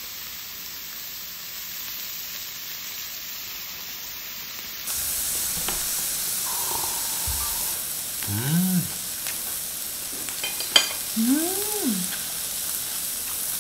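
Sendai wagyu beef slices sizzling on a tabletop grill plate, a steady hiss that gets louder about five seconds in. Twice near the end, a short rising-and-falling "mmm" hum from someone chewing the meat.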